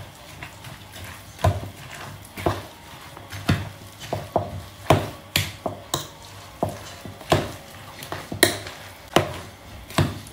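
A kitchen utensil knocking against a bowl again and again, about one or two sharp knocks a second, as mayonnaise is spooned into mashed potatoes and worked in.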